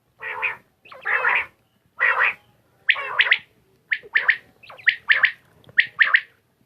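Quail calling over and over. The first few calls are longer and harsher, about a second apart. Then come quicker, sharper calls, each broken into two or three notes.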